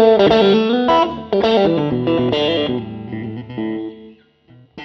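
1983 Fender JV ST-62 Stratocaster electric guitar playing a quick run of picked single notes that slows and thins out into a few held notes, ringing out and fading near the end.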